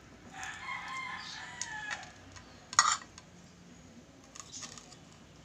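A rooster crowing once, a single call of about a second and a half whose pitch drops at the end. About halfway through there is one sharp tap, the loudest sound.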